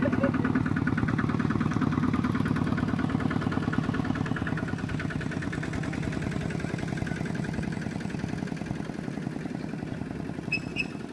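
A two-wheel walk-behind tractor's single-cylinder diesel engine running steadily as it works a flooded rice paddy, a rapid, even putter that slowly grows fainter. Two short high chirps sound near the end.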